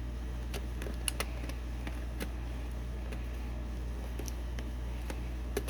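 A few faint, irregular plastic clicks and taps as a nickel-cadmium battery pack is worked against a camcorder's battery slot, over a steady low hum.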